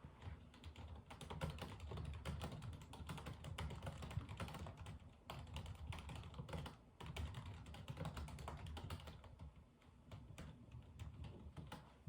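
Typing on a computer keyboard: fast runs of light key clicks, pausing briefly about seven and ten seconds in.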